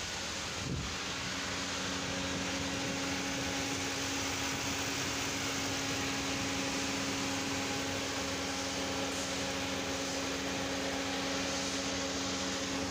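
2005 Mitsubishi Pajero running at the open engine bay: a steady fan-like rush with a steady hum that sets in just under a second in. The engine is being run to check that the new thermostat has cured its overheating.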